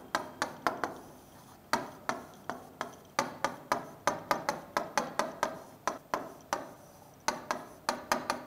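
Marker pen tapping and stroking on a whiteboard while handwriting: a quick run of sharp taps, about three to four a second, broken by two short pauses.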